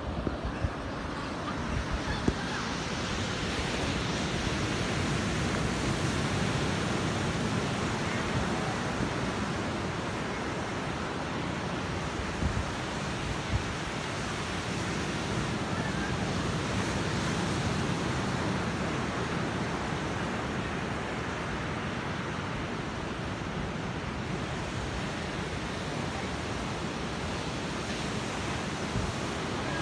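Ocean surf breaking on a sandy beach: a steady wash of waves that slowly swells and eases.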